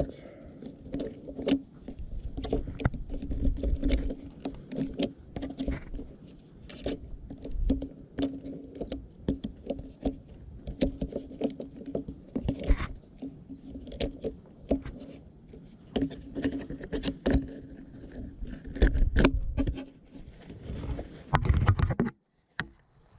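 Hands working the plastic line spool and cap of a Greenworks 40V string trimmer head to feed out more trimmer line. The sound is an irregular run of clicks, rattles and scrapes over rubbing handling noise.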